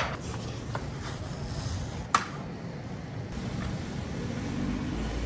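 Steady low hum of background machinery, with a single sharp click about two seconds in.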